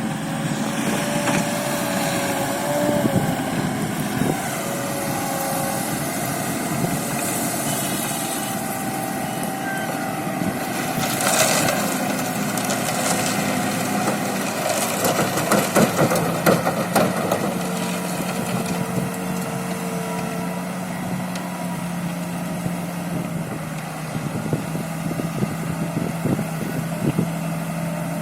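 Diesel engine of a self-loading concrete mixer running steadily, with a stretch of rattling and clattering about halfway through.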